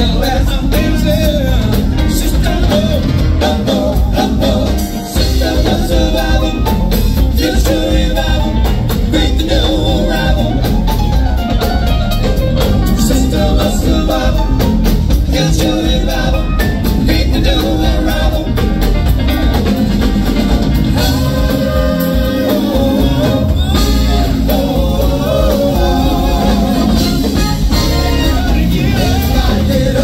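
Live band playing a song with singing over electric guitar, drum kit and percussion.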